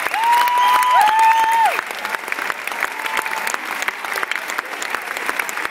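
Large audience clapping and cheering, with long high whoops over the applause for the first second and a half or so, then clapping alone.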